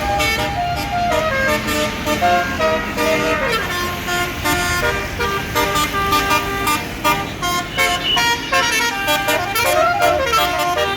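Tour bus's Basuri 'telolet' multi-tone air horns playing a fast tune of stepped notes, with the bus's engine running underneath.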